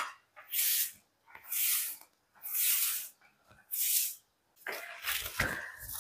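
Broom sweeping a tiled floor in regular strokes, one swish about every second. Near the end the strokes run together with a few low bumps.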